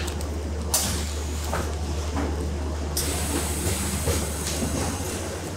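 Steady hum of processing-plant machinery, with crinkling of plastic vacuum bags as salmon fillets are handled; a high hiss sets in about three seconds in.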